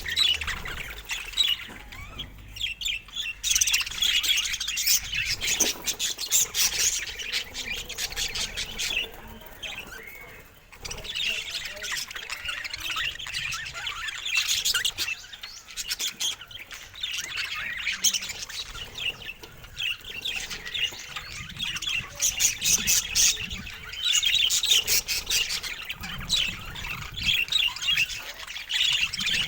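Budgerigar chatter: a near-continuous stream of quick chirps, squawks and clicks, with a brief lull about ten seconds in.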